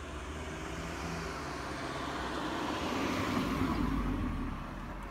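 A road vehicle passing by, its noise swelling to a peak about three and a half seconds in and then fading.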